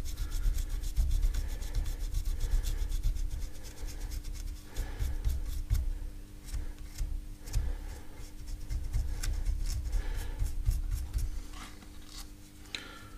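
Glass fibre pen scrubbing the carbon-blackened copper commutator of a mobility scooter's DC motor: rapid, scratchy rubbing strokes that clean the carbon off the worn commutator, stopping near the end.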